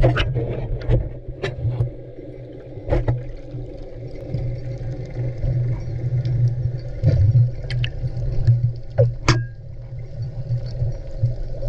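Underwater sound picked up by a camera in its housing during a freedive descent: a steady low hum, with scattered sharp clicks and knocks.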